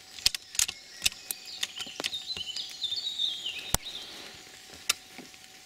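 Scattered sharp taps of rainwater dripping from the leaves above onto the car, one louder tap about two-thirds of the way through. A songbird sings a short phrase that steps down in pitch in the middle.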